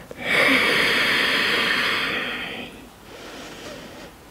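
A woman breathing close to the microphone: one long, loud breath of about two and a half seconds, then a fainter breath near the end.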